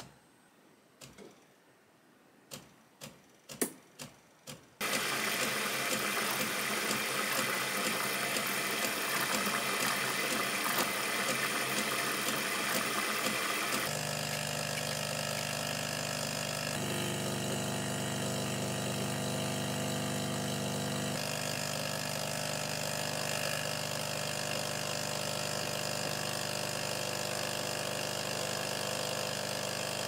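DeLonghi ECAM-series bean-to-cup coffee machine making a cappuccino: a few separate clicks, then a loud steady hiss as steam froths the milk through the milk carafe. About halfway through, this gives way to the steady buzz of the machine's pump while espresso pours into the milk.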